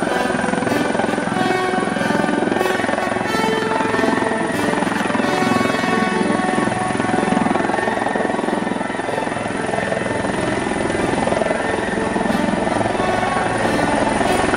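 CH-146 Griffon military helicopter running steadily as it lifts off and hovers low, with music mixed over it.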